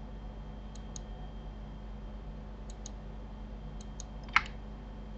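Faint computer mouse and keyboard clicks, mostly in quick press-and-release pairs, with one sharper click a little past four seconds in, over a steady low electrical hum.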